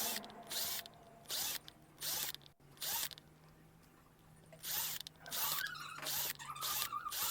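A hand tool working in short rasping strokes, about one every ¾ second, stopping for a second and a half midway, then coming faster.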